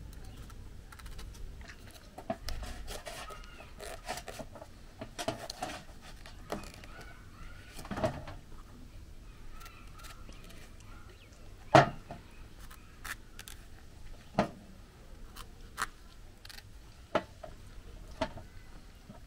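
Knife cutting through raw pumpkin, with irregular sharp clicks and knocks, the loudest about twelve seconds in.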